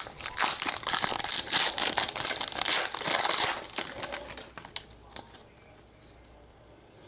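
Foil trading-card pack wrapper crinkling as it is torn open and the cards are slid out. The crinkling fades after about four seconds, leaving only a few faint clicks.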